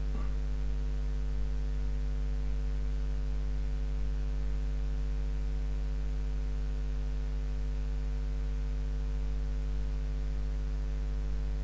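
Steady electrical mains hum picked up by the recording: a low buzz with several higher tones stacked over it, and a faint hiss.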